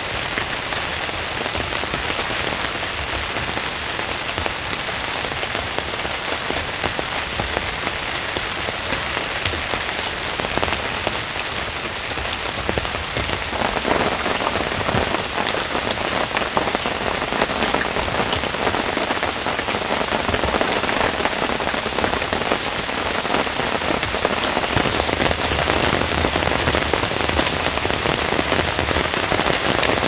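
Heavy rain falling steadily in a forest, a dense patter of drops that grows slightly heavier about halfway through.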